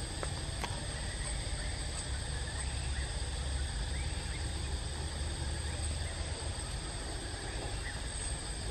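Steady outdoor background: a low rumble under a constant high-pitched insect drone, with a few faint chirps.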